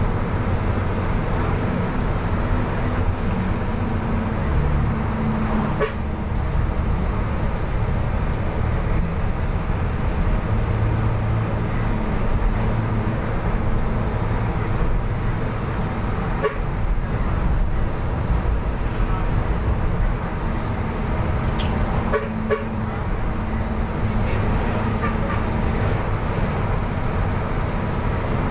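Steady engine and road rumble heard from inside a moving passenger vehicle on a highway.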